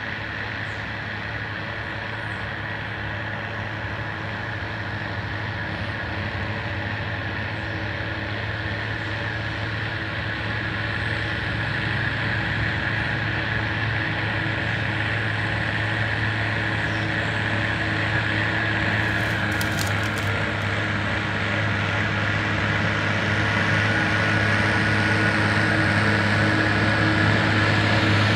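Diesel engine and spinner spreader of a lime-spreading floater buggy running steadily under load, growing louder as the machine comes closer.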